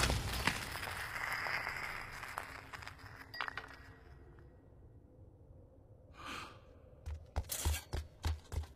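Film sound effects of a heavy monster moving among gear: a fading rush of noise at first, a short swish about six seconds in, then a quick run of heavy thuds with clinks and scrapes of wooden crates and equipment being handled.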